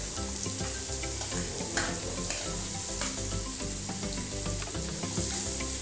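Chopped onions sizzling as they drop into hot oil with spluttered cumin seeds in an aluminium kadai, the start of sautéing them. A spoon scraping them off a plate gives a few light clicks.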